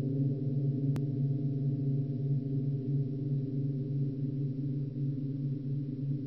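Low, steady droning music bed of several held tones, gong-like in colour, with a single faint click about a second in.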